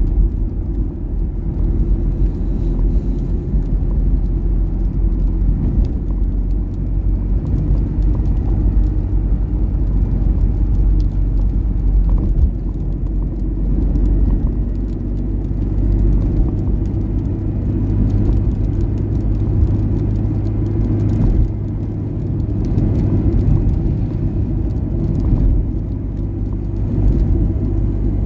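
Steady low rumble of a Wuling Confero MPV driving on a wet road: engine and tyre noise heard from inside the cabin.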